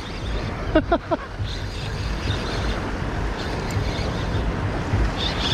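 Wind buffeting the microphone, a steady rushing noise with low rumbling thumps, with a brief voice sound about a second in.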